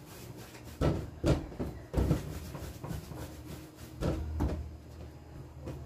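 Hands rolling small balls of bread dough and setting them down on a stainless steel worktop: about five soft, scattered knocks over a steady low hum.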